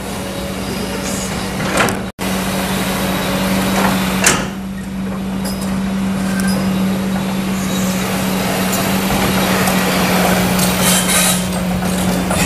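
Kobelco SK200 hydraulic excavator's diesel engine running with a steady drone while it digs, with a couple of sharp knocks from the working machine. The sound cuts out for an instant about two seconds in.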